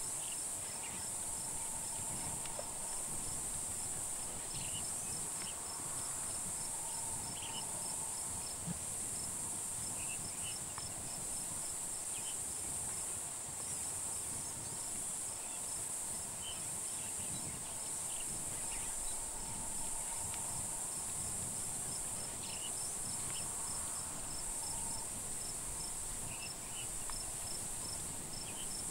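A steady, shrill chorus of insects chirring, swelling and fading gently, with a fast train of small ticks over it and a few short, scattered chirps.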